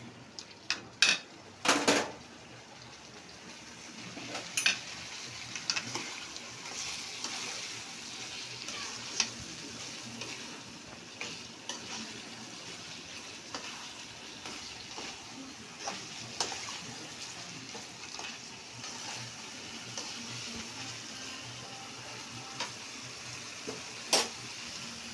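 Boiled chicken gizzards being stirred in a pan of hot oil. A spoon knocks sharply against the pan a few times in the first two seconds, then a steady frying sizzle runs on under occasional scrapes and taps.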